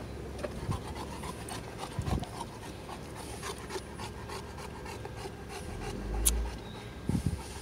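Large male Cane Corso panting open-mouthed, with a couple of low bumps about two seconds in and near the end.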